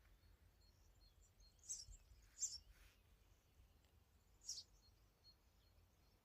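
Near-quiet countryside with a few short, high bird chirps, three in all, spread across a few seconds.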